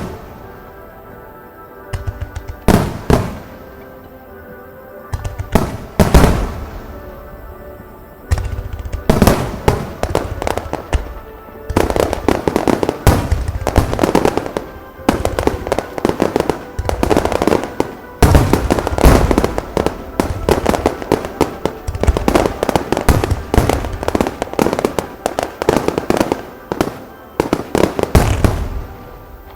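Fireworks display finale: separate loud aerial shell bursts, each with a rolling echo, at first, then from about twelve seconds in a dense, near-continuous barrage of bursts and crackle. Music plays underneath, heard most clearly between the early bursts.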